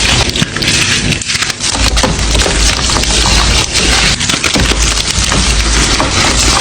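Gym chalk being crushed and crumbled, a loud dense crackling made of many small snaps, with dull thumps now and then.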